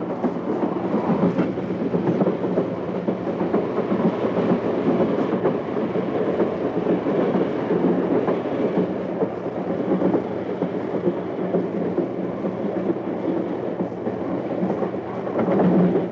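Passenger train running: a steady, loud rumble of the cars on the track with a low hum underneath.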